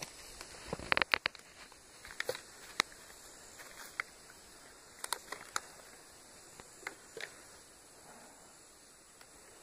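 Scattered crunches and clicks of footsteps on dry leaf litter and pine needles: a quick cluster about a second in, then single steps spaced a second or so apart.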